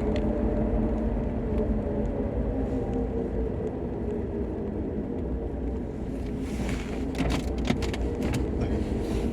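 Inside the cabin of a LADA Niva Travel on the move: low road and drivetrain rumble with a steady whining drone that fades in the middle and comes back near the end. This is the unexplained hum the owner has noticed, which he suspects comes from the transfer case, rear axle, driveshaft or half-shafts. A few short clicks sound about seven seconds in.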